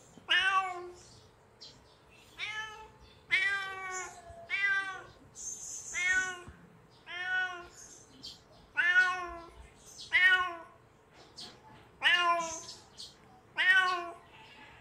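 Kitten meowing over and over, about eleven short, high calls a second or so apart, each rising then falling in pitch. It is calling out, which the uploader puts down to hunger.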